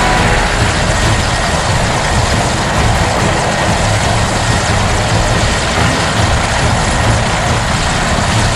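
Mi-25 attack helicopter running: a steady, loud turbine and rotor noise with a pulsing low throb.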